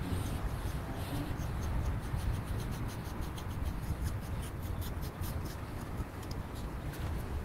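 Grooming tool raking through a German Wirehaired Pointer's wiry coat to work out burrs, in short strokes several times a second. Light wind noise on the microphone runs underneath.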